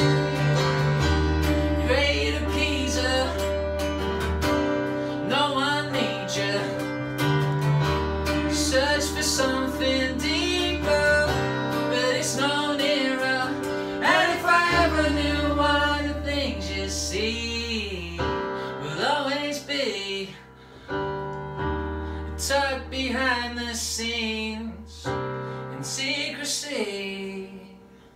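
Live stripped-down song: a man singing over an acoustic guitar strumming and an electric keyboard holding long low bass notes that change every few seconds. The singing ends near the end.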